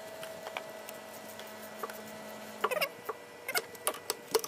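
Ratchet and socket clicking in short runs, with small metallic ticks, as a new spark plug is screwed into the engine's plug well; the clicks come mostly in the second half.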